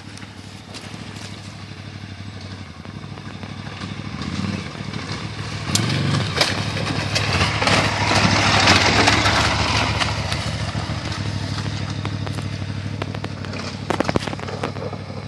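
KTM adventure motorcycle riding slowly over loose rocks at low revs, getting louder as it approaches and passes close by about eight seconds in, then fading as it moves away. A few sharp knocks near the end.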